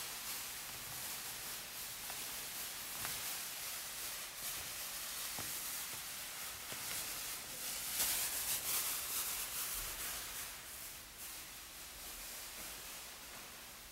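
Soft, high hissing shimmer from an experimental metal-rod instrument being played, with a few faint taps. It swells about eight seconds in and fades near the end.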